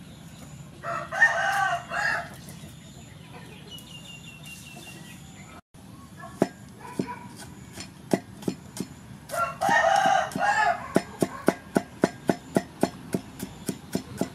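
A rooster crows twice, about a second in and again about nine and a half seconds in. From about halfway, a steel cleaver chops garlic on a wooden chopping block. The strokes come irregularly at first, then settle into a quick steady rhythm of about three to four a second.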